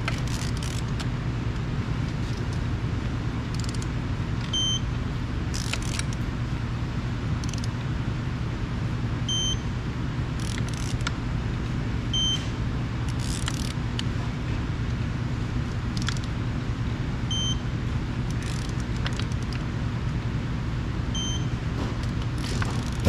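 A click-type torque wrench is ratcheting and clicking at intervals as the bolts on a Caterpillar D10R final drive's planetary carrier are tightened to 40 foot-pounds. Under it runs a steady low hum, and a short high beep sounds every few seconds.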